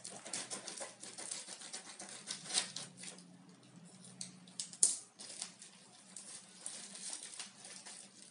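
Irregular rustling, crinkling and small clicks of the Mi Band 3's box and packaging being handled and opened, with a sharper click about two and a half seconds in and the loudest about five seconds in.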